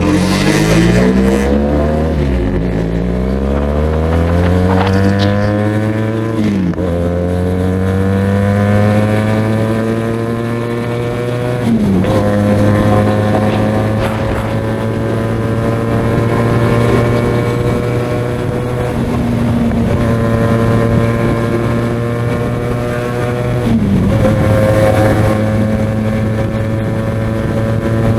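QJMotor SRK 400 parallel-twin motorcycle engine and exhaust under hard acceleration, the revs climbing and then dropping sharply at each upshift, about four times. Between shifts it holds a steady cruise.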